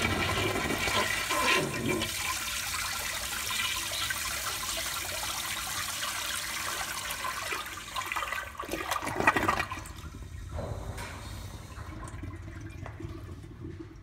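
A 1991 American Standard Afwall 3.5 gpf commercial toilet flushing on its flushometer valve, with a strong rush of water swirling through the bowl. The flow gets louder for a moment about nine seconds in, then continues as a quieter, fading flow of water.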